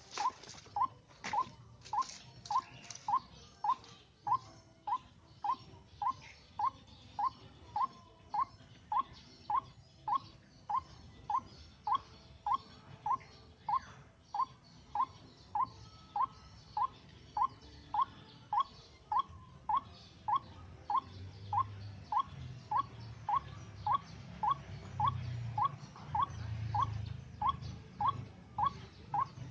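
White-breasted waterhen (ruak-ruak) call: a short, rising note repeated monotonously at about one and a half per second, the kind of call used as a lure to draw waterhens into a trap.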